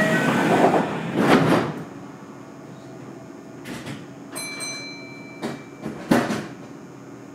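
Sliding passenger doors of a Kintetsu 1220 series train closing, with a short tone signal at the start and the doors thudding shut about a second and a half in. A quieter spell follows, with a steady high whine starting about four seconds in and two clunks near the end as the train gets under way.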